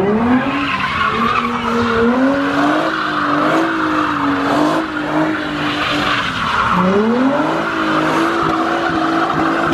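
Nissan 350Z's V6 engine held at high revs while the car spins donuts, its rear tyres squealing and scrubbing on the asphalt. The revs climb just after the start, drop briefly about seven seconds in, then climb back up.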